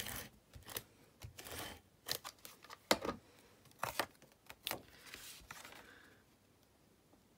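Paper-craft handling: card stock being slid, tapped and pressed down, with short rasping strokes of a Stampin' Seal tape-runner adhesive being rolled onto the card. A run of clicks and brief rasps that thins out and goes quiet near the end.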